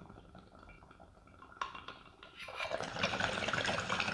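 Water bubbling in a glass beaker bong as smoke is drawn through it: a soft gurgle that swells into loud, fast bubbling about two and a half seconds in, with a sharp click shortly before.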